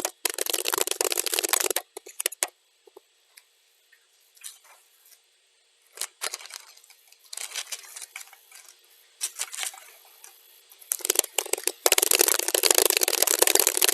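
Computer keyboard typing, sped up to double speed: a fast run of keystrokes, then several seconds of scattered single keystrokes, then fast continuous typing again from about 11 seconds in.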